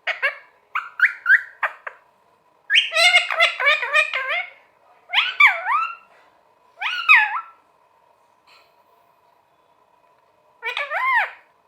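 Pet green parrot chattering and squawking in a quick run of short calls, then two longer rising-and-falling calls. After a pause of about three seconds it gives one more call near the end.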